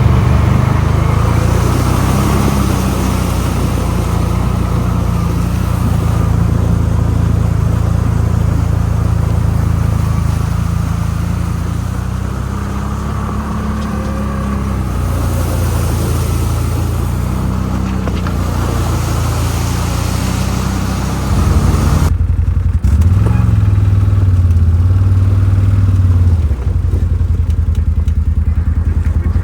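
CFMOTO quad bike's engine running under way, its pitch rising and falling with the throttle under a steady hiss. About 22 seconds in the hiss drops away and the engine's low note comes forward, louder.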